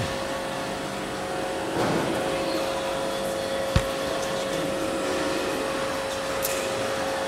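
Steady mechanical hum with a constant whine, with one sharp click a little under four seconds in.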